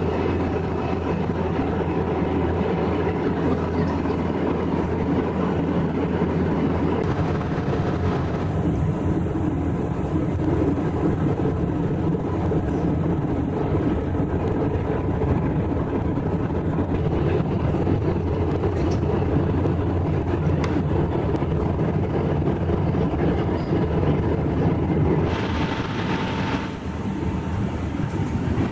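Airbus A319 cabin noise from a seat by the wing: the steady drone of the jet engines and rushing air, with a few constant hum tones. Near the end, a brief louder hiss stands out for about a second and a half.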